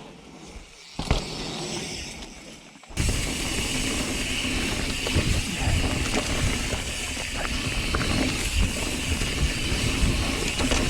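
Mountain bike being ridden on a dirt trail: tyre, drivetrain and rattle noise picked up by the GoPro's mic. A few clicks at first, then a sudden jump about three seconds in to louder, steady rumbling trail noise with small knocks.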